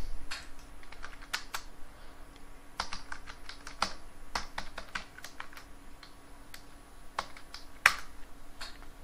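Computer keyboard keystrokes: irregular bursts of typing, with one sharper, louder key press about eight seconds in.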